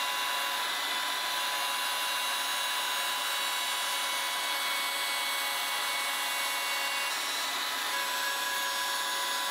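Table-mounted router running at speed with a steady high whine, its bearing-guided flush-trim bit trimming the edge of a plexiglass-and-particleboard piece.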